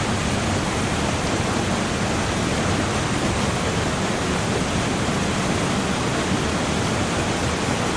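Fast-flowing floodwater rushing in a steady, unbroken wash of noise.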